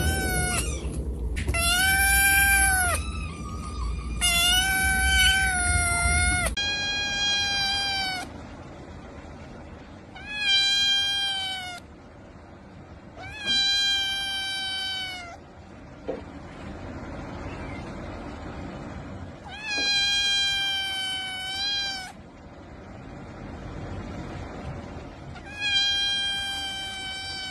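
Kittens meowing over and over: about eight drawn-out, high-pitched meows, each lasting one to two seconds, with short gaps between them.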